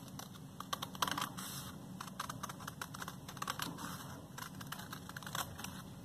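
Scissors cutting through folded cardstock: a run of short, irregular snips along a curve.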